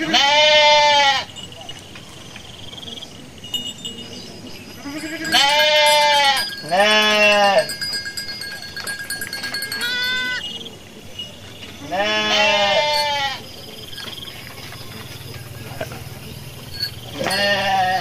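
Garut sheep bleating: about five long bleats of about a second each, typical of the ewe, and one short, higher bleat around the middle, typical of her newborn lamb.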